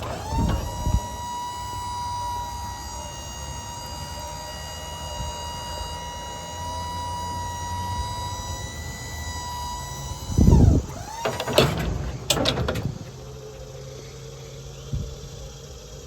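An electric motor whines up to a steady high pitch, runs for about ten seconds, then winds down. It starts again briefly, followed by a few clunks.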